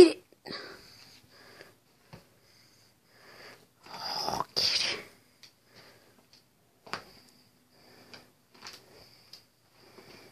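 Quilted bedcover rustling in short bursts as a cat rolls and tussles in it, with a sharp noise right at the start and the longest rustle about four to five seconds in.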